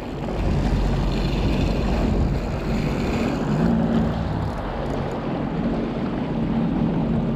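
Jet ski engine running steadily with a low hum, over water rushing past the hull and wind on the microphone.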